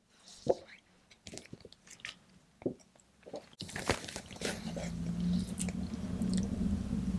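Scattered faint clicks and rustles of handling, then, from about three and a half seconds in, a steady low hum under light paper-handling clicks as a picture book is held open.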